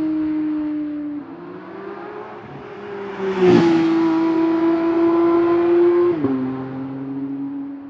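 Porsche 992 GT3's naturally aspirated flat-six driving past at a steady throttle. It is loudest about three and a half seconds in, where its engine note drops in pitch as the car goes by.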